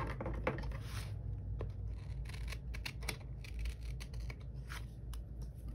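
Scissors cutting a paper sticker: a run of short, sharp snips.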